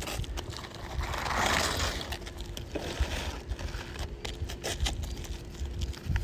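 Wind rumbling on the microphone, with rough scraping about a second in and scattered light clicks as asphalt roof shingles are handled.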